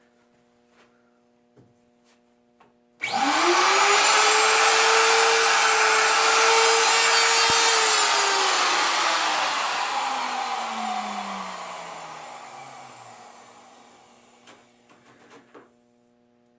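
A plunge router for routing surfboard leash plug holes is switched on about three seconds in, and its motor whine climbs quickly to a high steady pitch. It runs at speed for a few seconds, then is switched off and winds down, the whine falling slowly and fading out. A few light clicks of handling come before and after.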